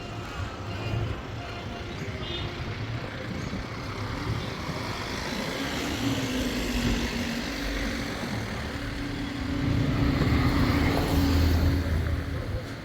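A motor vehicle's engine running steadily with a low rumble. It grows louder about ten seconds in, then drops back near the end, as if passing close.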